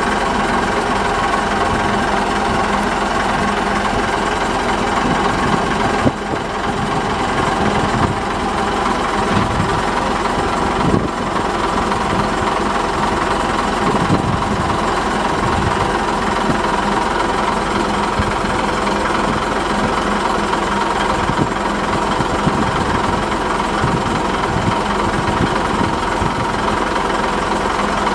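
Diesel shunting locomotive's engine running steadily under way, with irregular low knocks from the wheels on the track.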